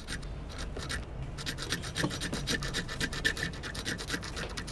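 Paint being scrubbed on a palette by hand: quick, rhythmic scratchy strokes, several a second, with a short break about a second in before they carry on steadily.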